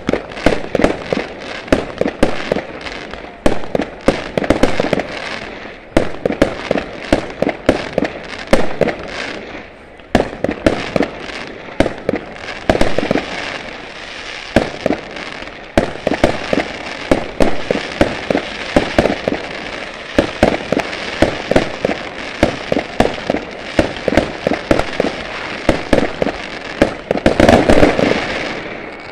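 Fireworks going off in a rapid, continuous string of bangs and crackles, several reports a second, with a dense, loud volley near the end.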